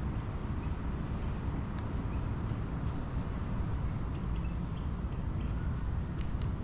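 A bird calls a run of about eight short, high notes, each a step lower than the last, over a steady low rumble and a faint steady high whine.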